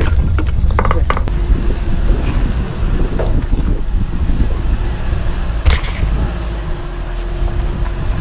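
Off-road 4x4 working its way over rocks: a steady low rumble with scattered creaks, clicks and knocks, the sharpest near the start and about six seconds in.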